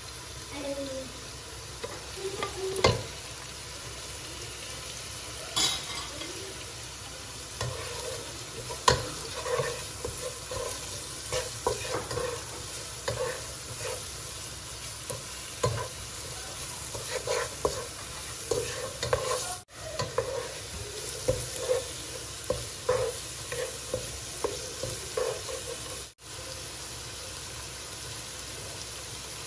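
Wooden spatula stirring and scraping spices and vegetables around a frying pan, in many short irregular strokes over a steady sizzle of frying, with a few sharper knocks early on.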